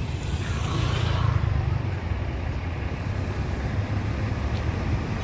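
Road-traffic rumble, with a vehicle passing about a second in.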